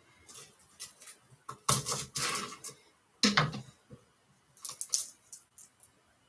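Dishes and utensils knocking and clattering in a run of short clicks and knocks, loudest about two seconds in and again just after three seconds.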